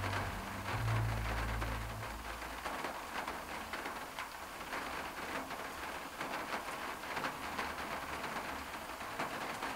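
Rain falling on a classic car's roof and rear window, heard from inside the cabin as a steady patter with many small drop ticks. A low rumble sounds under it for about the first two seconds and then stops.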